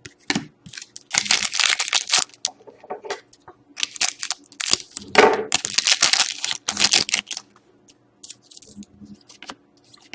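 Trading cards and their packaging being handled: crinkly, rustling paper-and-plastic handling noise in three main bursts, with small clicks and taps between them.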